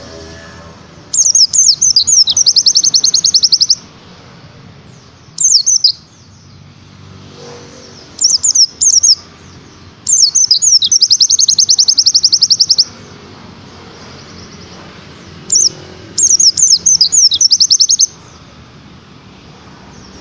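A pleci (white-eye) singing in fast high 'tembakan' bursts: runs of rapid, sharply falling chirps, each burst from under a second to about three seconds long, repeated several times with short pauses, over a low steady background murmur.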